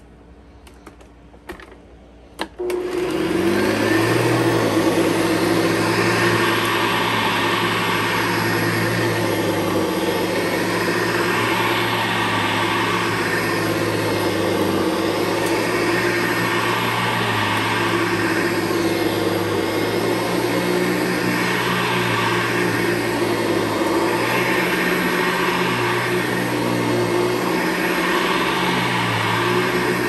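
Hoover Convertible U4401 upright vacuum, fitted with a 12-blade metal fan and a metal beater-bar brushroll: a few clicks, then the motor starts about two and a half seconds in, spins up and runs steadily. Its hiss swells and fades every couple of seconds as it is pushed back and forth over carpet.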